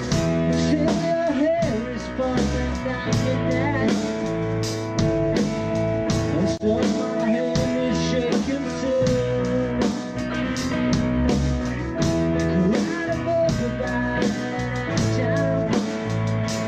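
Blues-rock band playing an instrumental passage: a lead guitar line with bent notes over bass and a steady drum beat.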